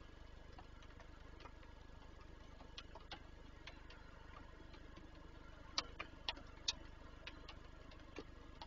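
Irregular sharp ticks of raindrops striking the falcon nest box, with a quick run of four louder ones about six seconds in, over a faint low hum.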